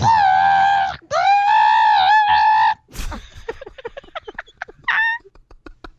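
A woman imitating a dial-up modem connecting with her voice: high squealing tones for the first few seconds, then a rattling, rolling crackle for the end part, with one short squeal near the end.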